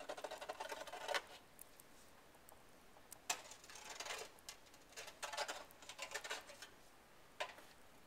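Long-handled snow scraper dragged across the snow-covered roof edge, a rasping scrape a second or so long with each stroke: one at the start, one about three seconds in, a longer one about five seconds in and a short one near the end.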